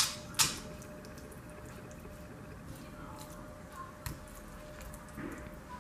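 A hand squishing and turning thin fish slices through a wet spice marinade in a stainless steel bowl. Two sharp clicks come right at the start, and a fainter one about four seconds in.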